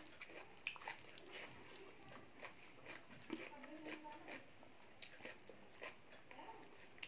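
Close-miked eating: wet chewing and lip-smacking on mouthfuls of dal and rice, heard as a run of small irregular clicks and smacks. A brief pitched sound comes about halfway through.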